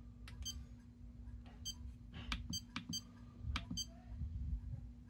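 iCharger 308 Duo balance charger giving short electronic key beeps, about four in all, with clicks in between, as its buttons are pressed to set up and start a charge. A faint steady low hum runs underneath.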